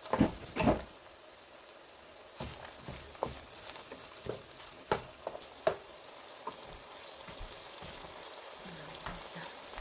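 Chicken and onions frying in butter in a hot frying pan, with a steady sizzle under the scrape and clack of a utensil being worked against the pan. Two louder knocks come just after the start, then scattered clicks.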